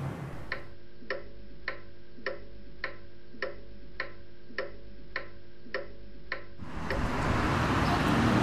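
Pendulum wall clock ticking steadily, a little under two ticks a second, each tick with a short ring. Outdoor background noise comes in near the end.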